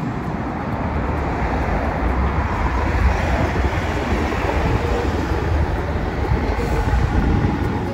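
Hiroshima Electric Railway streetcar running on street track amid road traffic: a steady low rumble with wheel-on-rail noise, growing a little louder over the first few seconds.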